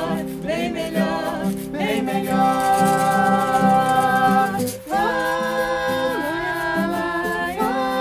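Music: a man and a woman singing long held notes without clear words over acoustic guitar, with a woven basket shaker keeping time. The notes hold, break off about five seconds in, then start again and bend in pitch near the end.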